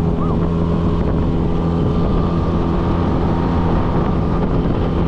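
Small fishing boat's motor running steadily under way, an even drone with water and wind noise over it.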